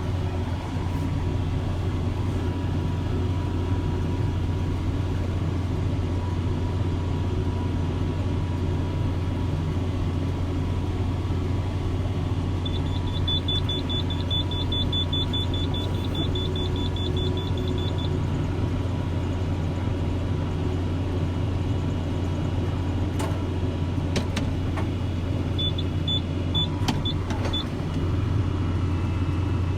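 Tractor and CLAAS round baler running steadily while baling, a constant low drone. Twice a run of rapid, high electronic beeps sounds over it: about halfway in and again a little after three-quarters of the way.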